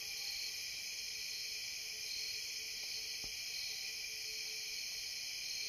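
Summer-night insect chorus of crickets, a steady high-pitched trilling that does not let up.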